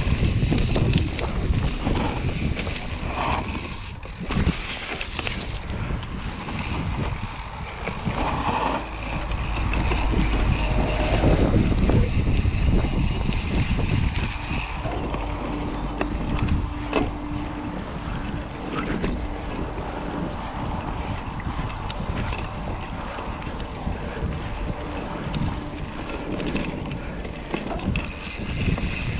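Riding noise of a Santa Cruz Hightower mountain bike on a dirt and grass trail: wind buffeting the rider-mounted action camera's microphone over the tyres rolling, with frequent small knocks and rattles from the bike.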